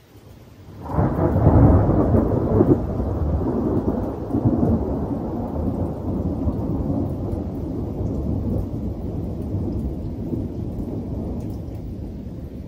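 Thunder from a summer thunderstorm: a low rumble that builds and jumps up sharply about a second in, is loudest and crackling for the next couple of seconds, then rolls on and slowly fades.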